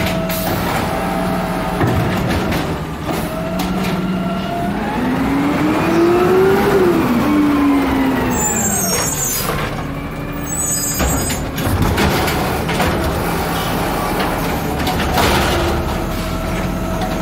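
Automated side-loader garbage truck's diesel engine running as its arm dumps a cart, then revving up and falling back in pitch over a few seconds as the truck pulls forward. A few sharp knocks and hisses follow as it stops at the next carts.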